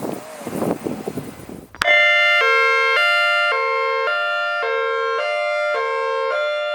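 Electronic outdoor warning siren sounding a stepped alert tone that switches sharply between pitches about twice a second; it plays ahead of the siren's recorded test message. It starts suddenly about two seconds in, after a stretch of rough rumbling noise.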